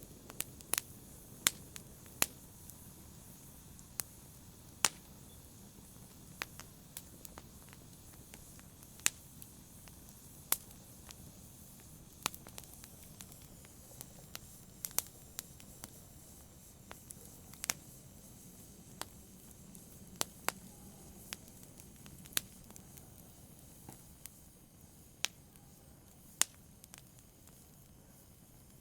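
Wood fire crackling: sharp, irregular pops and snaps at uneven intervals, a few standing out much louder than the rest, over a faint steady hiss of the burning.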